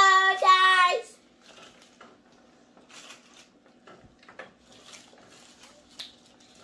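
A child's voice holds a drawn-out, sung-like note for about the first second. Then come faint rustles and small clicks from paper taco wrappers being handled as the children eat.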